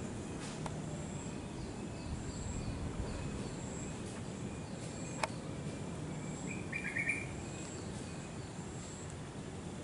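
Outdoor background noise: a steady low rumble under a thin high note that repeats about once a second. A short bird chirp comes about seven seconds in, and one sharp click about five seconds in.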